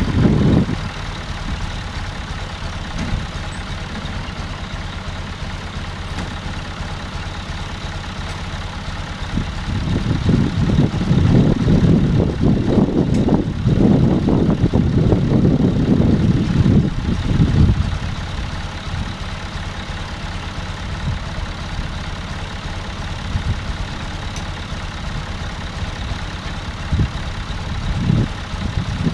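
John Deere 1030's three-cylinder diesel tractor engine idling steadily. For several seconds in the middle, a louder, uneven low rumble rises over it and then falls back.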